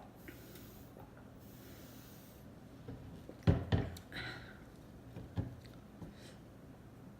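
Close-miked eating sounds: soft nasal breathing, then two sharp wet mouth sounds about halfway through, a short breath, and another smack about a second later.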